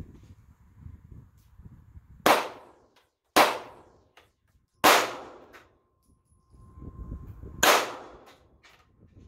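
Four handgun shots, the first about two seconds in, then roughly a second, a second and a half and nearly three seconds apart, each with a short echo trailing after it.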